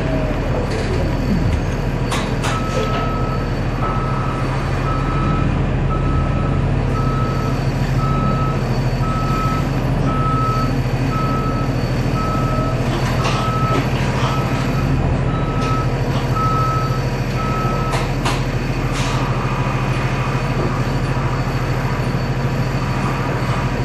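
A reversing alarm beeping about once a second. It starts a couple of seconds in and stops several seconds before the end, over the steady low hum of the Orion VII hybrid bus's diesel-electric drivetrain.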